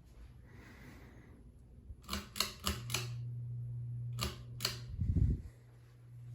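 Sharp switch clicks from a Hampton Bay Edgemont ceiling fan: four in quick succession, then two more a second later. A steady low motor hum comes in with the first group. A low thump comes a little after five seconds, and then the hum goes on more quietly.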